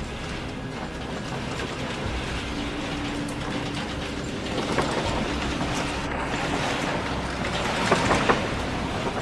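Earthquake shaking a building: a steady rumble with rattling. It grows louder about halfway through, with clicks and knocks near the end.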